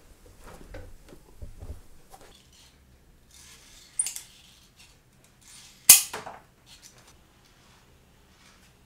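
Metal shears cutting leather in a few sharp snips. One click comes about four seconds in and a louder, crisp snap just before six seconds, with faint handling ticks around them.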